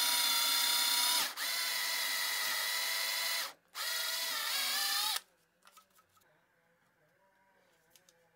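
Cordless drill boring into the end grain of a wooden rod, its motor whining steadily. It drops out briefly about a second in and again near three and a half seconds, then stops about five seconds in, leaving a few faint knocks.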